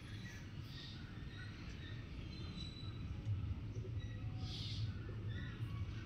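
Faint ambience of scattered short, high bird chirps over a low steady hum; no rooster crow stands out.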